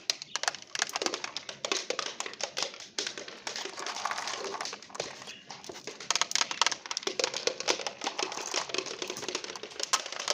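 Marbles clattering down a stepped marble-run track: a dense, irregular stream of clicks and knocks as they hop from step to step and roll along the slope.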